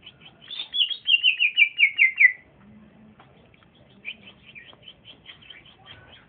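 Young male trotolan songbird singing: a loud, fast trill of short notes stepping down in pitch for about two seconds, followed by a run of quieter, evenly repeated short chirps.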